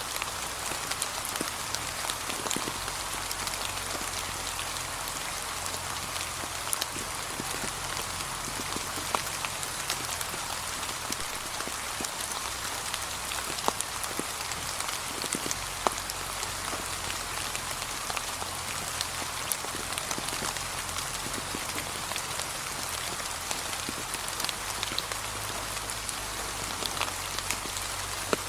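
Gentle, steady rain falling on fallen autumn leaves, with many separate drop hits scattered through a constant hiss.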